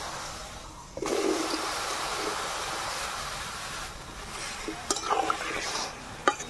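Cut raw mango pieces tipped into water in a metal kadai: a splashing, watery rush from about a second in that lasts about three seconds. A metal spatula then knocks and scrapes against the pan a few times as the pieces are stirred.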